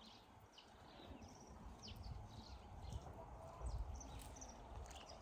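Faint rural outdoor sound: scattered short high chirps and ticks over a low rumble that swells about two seconds in and again near the end.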